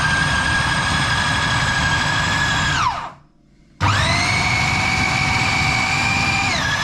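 Food processor motor blending a thick fish-cake mixture with a steady whine. It spins down to a stop about three seconds in, starts again under a second later running faster, and steps down in speed just before the end.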